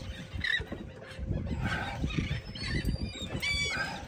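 A low rumble of wind and water, with a run of short repeated high calls from a bird starting about two and a half seconds in.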